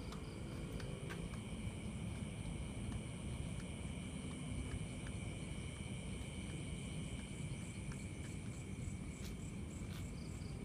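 Insects chirring steadily in a high continuous drone over a low rumble.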